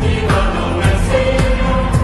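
Background pop music with singing and a steady beat.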